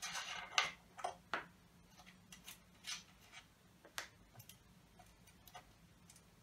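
Irregular small metallic clicks and taps, one or two a second and louder in the first second and a half, as a 12 mm socket is worked by hand on the nuts holding the front-panel controls of a vintage Pioneer TX-8500 II tuner. A faint steady low hum runs underneath.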